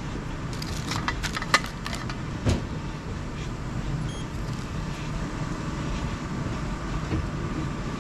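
Steady background hum with a few light clicks and clatter in the first few seconds, and a faint steady tone that comes in about halfway through.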